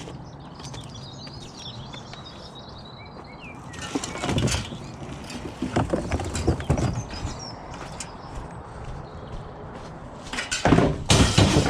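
Small birds chirping over a steady outdoor background, then bursts of rustling and clattering at about four and six seconds, and a louder clatter near the end.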